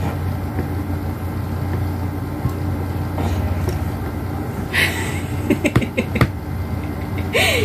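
Steady low background hum, with a cluster of sharp taps about two-thirds of the way through from a small plastic knife knocking on a plastic tabletop while cutting playdough, and a short squeak-like sound near the end.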